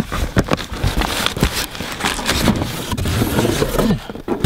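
Cardboard shipping boxes being handled and shifted: cardboard scraping and crackling, with scattered knocks.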